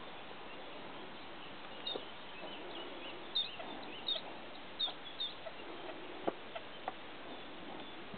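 Birds calling outdoors over a steady background hiss: four short, high, hooked notes in quick succession near the middle, with softer scattered chirps and clicks.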